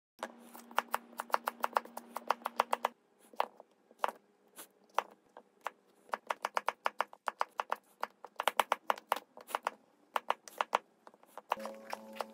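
Chef's knife chopping peeled potatoes on a plastic cutting board: quick runs of sharp knocks on the board, several a second, with short pauses between runs.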